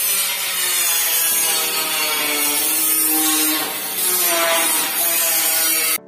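Angle grinder running against steel, a loud continuous harsh grinding that eases briefly about four seconds in.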